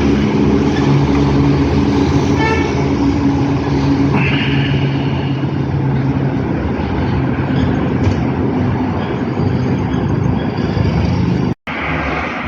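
Motor vehicle engine running steadily with road traffic noise, and a short horn toot about two and a half seconds in. The sound drops out for an instant near the end.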